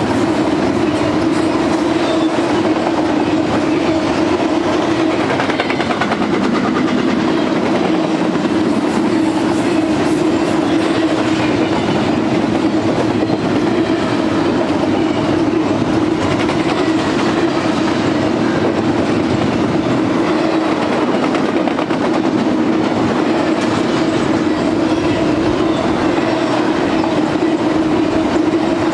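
Double-stack intermodal container train's well cars rolling past: a loud, steady rumble and clatter of steel wheels on the rails.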